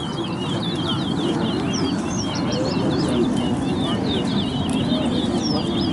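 Caged towa-towa seed finches singing in a song contest, a dense, continuous run of quick high chirping notes. Low crowd chatter runs underneath.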